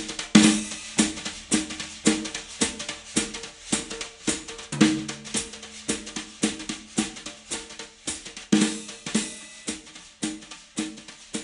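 Music with a drum kit playing a steady beat.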